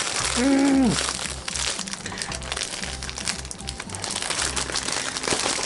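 Plastic wrapping crinkling and crackling as a plush toy is worked out of its bag. A short hummed note comes about half a second in.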